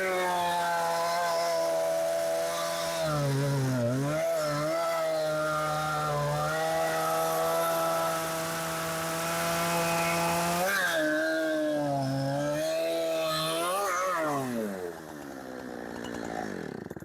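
Milwaukee M18 Fuel 20-inch cordless chainsaw running at full speed and cutting wood. Its motor whine dips in pitch several times as the chain loads up in the cut. Near the end the trigger is released and the motor winds down with a smoothly falling pitch until it stops.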